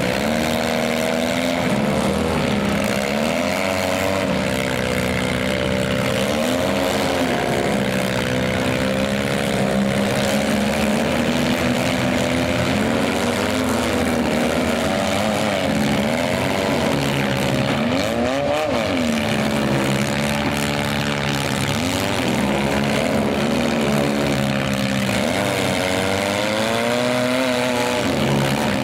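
Several demolition-derby minivan engines running hard and revving, their pitch rising and falling over and over as the vans accelerate, push and back off.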